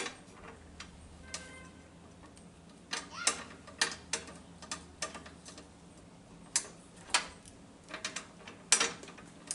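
A metal wrench on nuts, making irregular sharp metallic clicks and clinks as the nuts are worked loose. A few of the clinks ring briefly.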